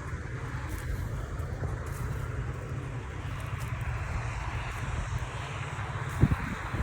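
Engine of a rice-harvesting machine running steadily, with a brief thump about six seconds in.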